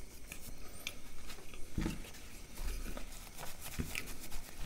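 Close-miked chewing of food, with scattered short wet mouth clicks and smacks. Near the end, a paper napkin rustles as it is pressed to the mouth.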